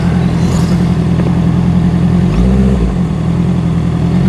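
Honda CBR650R's inline-four engine running at low speed, with a short rise in revs a little over two seconds in before it settles back.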